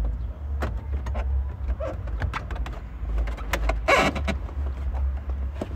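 Plastic clicks and knocks as a car's factory head unit and dash fascia are pressed back into the dashboard and clipped home, with a louder scraping rustle about four seconds in. A steady low rumble runs underneath.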